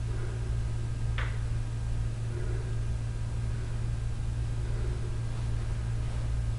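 Steady low electrical hum, with a single sharp slap about a second in from a gloved punch landing on a hanging heavy punching bag.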